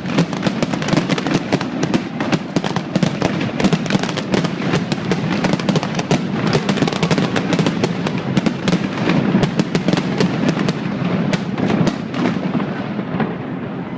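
Fireworks display: a dense, continuous barrage of booming bursts and crackles, the crackling thinning out over the last couple of seconds.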